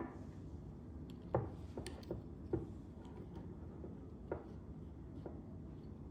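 Light, scattered clicks and knocks of small hard parts being handled, about half a dozen at irregular intervals.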